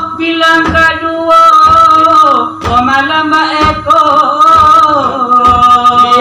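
Male voice singing long, wavering held notes in salawaik dulang chant, with the brass tray (dulang) struck about once a second.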